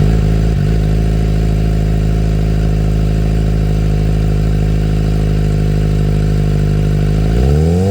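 Suzuki GSX-R600 inline-four with a CS Racing full exhaust, dB killer removed, idling steadily and loudly, then starting to rev up in a rising sweep near the end.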